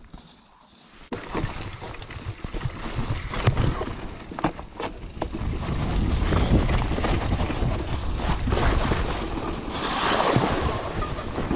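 Mountain bike riding down a rocky trail: wind buffeting the handlebar camera's microphone, with tyre rumble and many short knocks and rattles as the bike rolls over rocks. This starts about a second in. Near the end comes a hissing splash as the bike rides through a large puddle.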